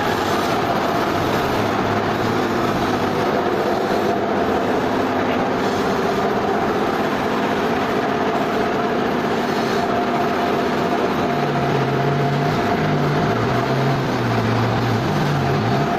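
Sawmill machinery running steadily: a dense mechanical noise with a steady whine, and a lower hum that starts shifting up and down in pitch about two-thirds of the way through.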